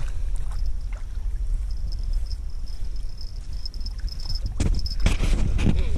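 Steady low rumble with a thin, steady high insect buzz from about a second and a half in to past four seconds. Scuffs and knocks near the end.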